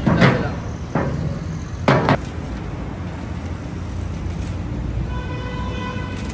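Three metal clanks in the first two seconds as tins and steel cooking pots are handled, then a steady background hum of traffic, with a one-second beep about five seconds in.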